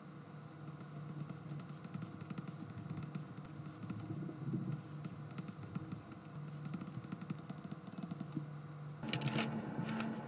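Stylus tip tapping and sliding on a tablet's glass screen during handwriting, a quick, irregular run of light clicks. About nine seconds in it gives way to a louder stretch of scratching and clicking.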